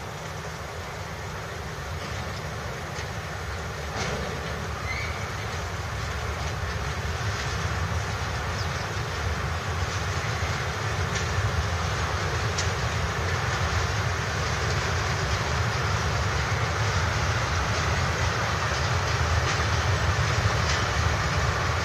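Freight train of tank wagons rolling along the track, the wheels rumbling steadily with a few sharp clacks. The rumble grows gradually louder.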